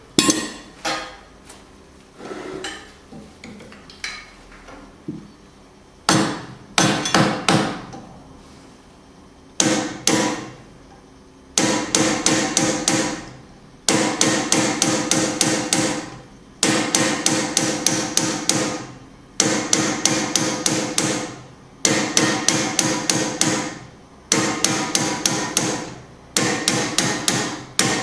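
Hand-cutting a steel rasp: a hammer strikes a small pointed punch held against the rasp blank on an anvil, raising one tooth with each blow. The first few seconds hold scattered lighter taps. After that come quick runs of sharp metallic strikes with a short ring, each run about two seconds long, with brief pauses between runs.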